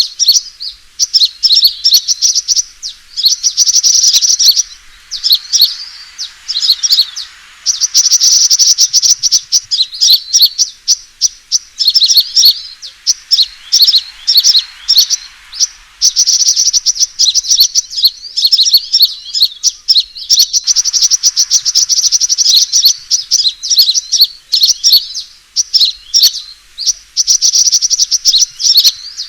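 Sunbird fighting calls from a bird-lure recording: rapid, high-pitched chirps and trills in dense bursts, separated by short pauses. This is the agitated territorial calling used to draw wild birds in to a trap.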